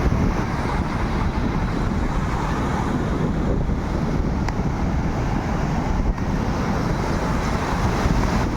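Steady wind buffeting the microphone over the rush of surf on a beach.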